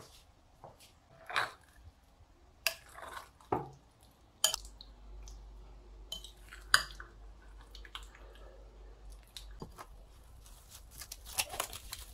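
A spoon clinking and scraping against a glass mixing bowl as spice-coated chicken pieces are stirred, in scattered sharp knocks. Near the end, plastic cling film crinkles as it is stretched over the bowl.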